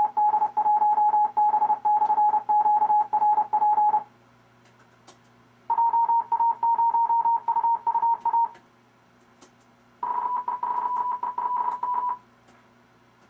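Three computer-generated Morse code (CW) transmissions of amateur radio callsigns from the RufzXP practice program, each a fast run of keyed dots and dashes on a single pure tone. Each callsign is sent at a slightly higher pitch than the last, with short pauses between them.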